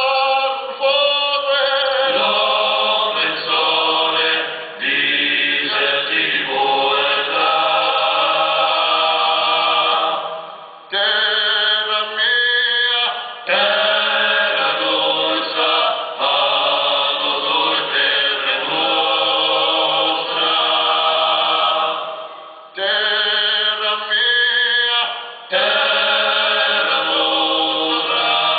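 Male vocal group singing Corsican polyphony a cappella, several voices holding long, close-harmony chords. The singing comes in long phrases, with short breaths between them about 11, 13, 23 and 25 seconds in.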